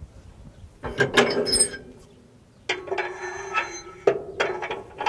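Steel float-lock pin on a John Deere 600D draper's float adapter being worked out of its transport position by hand: a quick run of metal clicks and knocks about a second in, then two stretches of steady metal-on-metal scraping as the pin slides in its bore.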